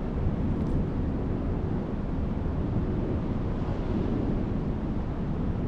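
Steady low rumbling noise of wind buffeting the microphone outdoors, even throughout with no distinct events.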